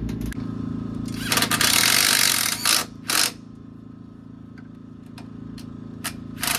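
Short bursts of a power tool during motorcycle engine reassembly: one run of about a second and a half, then several brief ones, over a steady machine hum.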